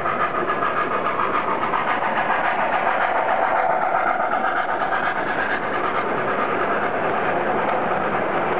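O gauge model freight train rolling past close by on the layout's track: the cars' wheels and the train's motor make a steady, even rolling rumble.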